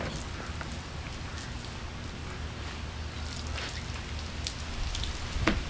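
Water dripping and pattering around a freshly washed car, with a wet sponge wiping its painted side. A sharper knock comes about five and a half seconds in.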